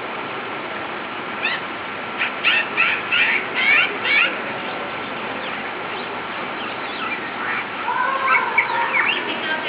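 Bird chirps: a quick run of short, high notes starting about a second and a half in, then more calls near the end, over steady background noise.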